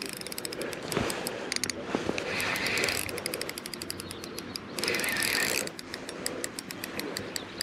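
Spinning reel clicking rapidly as a hooked zander is played and wound in, with a few short bursts of rushing noise.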